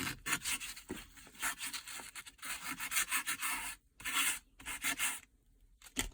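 600-grit sandpaper on a foam sanding block rubbing over a car's plastic piano-black center console trim in quick back-and-forth strokes, roughing up heat-warped plastic to level it. The strokes stop about five seconds in.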